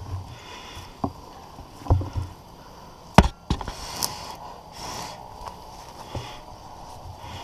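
Wood knocking and branches rustling as a climber moves through a tree crown. Several sharp knocks and dull thuds come at irregular intervals, the loudest a little after three seconds in.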